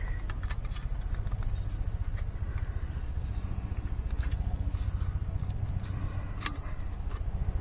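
Small metal clicks and taps as the parts and windshield of a folding BCB camping stove are handled and fitted together, over a steady low rumble.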